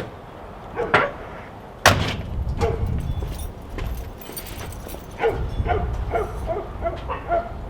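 A dog barking and yipping in short bursts, with a quick run of yips in the second half. A sharp thump comes about two seconds in, followed by a low rumbling background noise.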